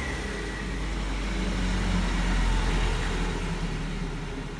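A motor vehicle passing by: a steady rumble and road noise that swell to a peak about halfway through, then fade.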